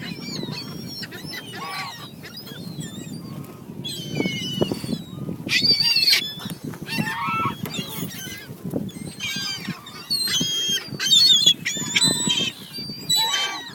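Several geese honking, their calls coming thick and overlapping, loudest about two-thirds of the way in.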